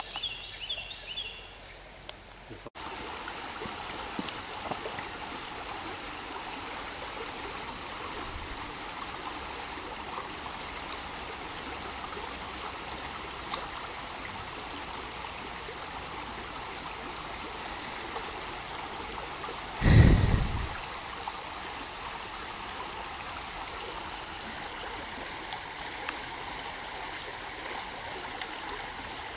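Steady rushing of a shallow stream running over riffles, with one loud low thump about twenty seconds in.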